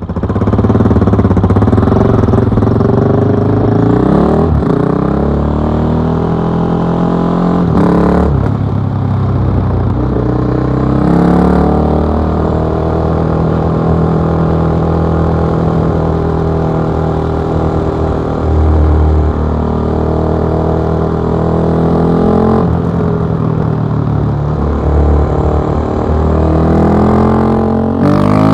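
KTM 660 SMC's single-cylinder engine through an Akrapovic exhaust, ridden on the road: the engine note rises and falls several times as it accelerates through the gears, with a long steady cruise in the middle.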